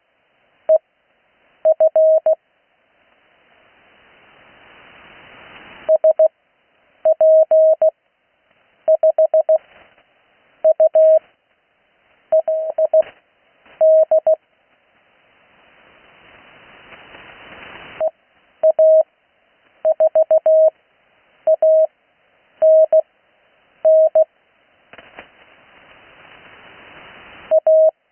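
Morse code (CW) practice on the 80 m amateur band: fast-sent characters keyed as a steady single tone in short dit-dah groups, with long Farnsworth-method gaps between characters. In the longer gaps a band hiss slowly swells and is cut off as the next character is keyed.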